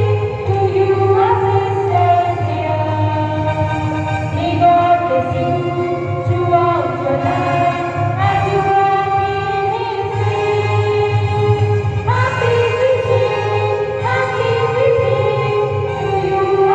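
A choir of female voices singing a song in long held notes that step up and down in pitch, over a steady low accompaniment.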